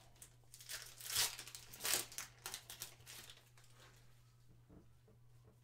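A trading card pack's wrapper being torn open and crinkled by hand, in a few rustling swells over about two and a half seconds, the loudest two close together early on. A steady low electrical hum runs underneath.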